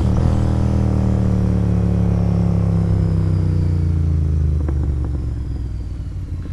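Royal Enfield Interceptor 650's parallel-twin engine through an aftermarket sport exhaust, its revs falling steadily as the bike slows. From about five seconds in it settles lower and quieter.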